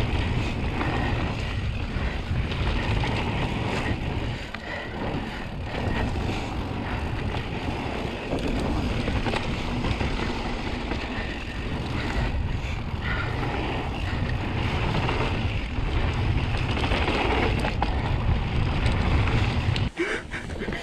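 Wind buffeting a GoPro's microphone as a mountain bike rolls down a dirt singletrack, with tyre noise on the dirt and frequent clicks and knocks from the bike rattling over bumps. The noise dips briefly near the end.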